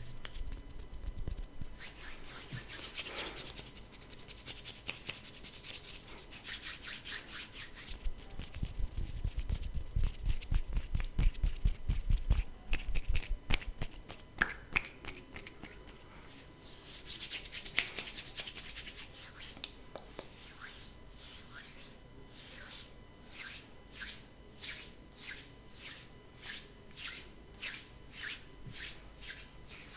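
Hands rubbing together in quick strokes, with some low thuds around the middle. In the second half the strokes settle into a regular back-and-forth rhythm of about one and a half a second.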